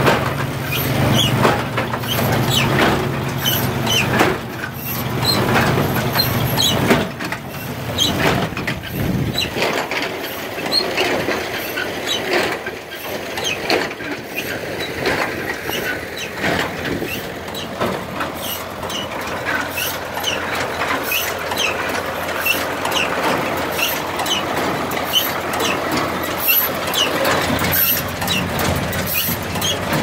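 John Deere 24T PTO-driven square baler running, its chains, sprockets and plunger clattering with many rapid clicks and squeaks. A low hum under the clatter stops about ten seconds in.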